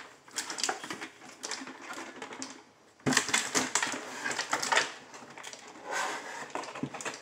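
Cardboard box flaps rustling and scraping, with irregular clicks and knocks of hard plastic toy parts, as a plastic toy train playset is worked out of its box. A busier, louder stretch of clatter starts about three seconds in.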